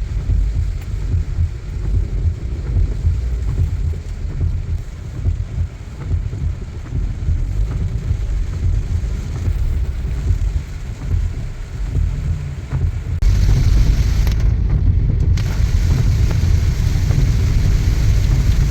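A car driving in heavy rain: a steady low rumble of tyres on the wet road with a hiss of rain and spray. About 13 seconds in it turns louder and hissier.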